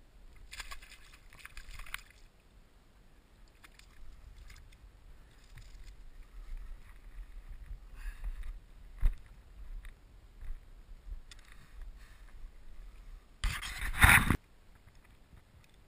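Low wind rumble on the microphone with scattered rustles and scrapes as a peacock bass is handled and carried over rocks and grass, and a loud rustling burst about a second long near the end.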